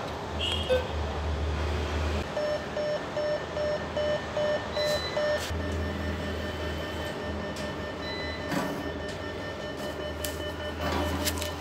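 SBI ATM dispensing cash: the note mechanism whirs and rumbles in spells, with a run of about eight short, even beeps, about three a second, in the first half.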